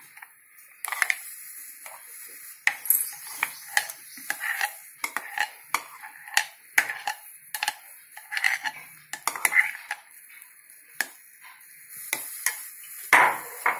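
Steel spoon scraping thick chocolate cake batter out of a steel bowl and knocking against the steel bowls: a string of metal clinks and scrapes, with one louder clank near the end.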